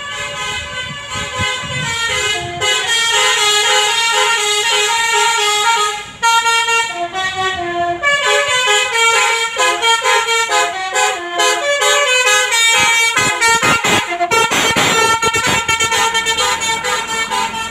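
Telolet basuri bus horn, a set of air-horn trumpets sounding a long melody of quickly changing notes, with a brief break about six seconds in.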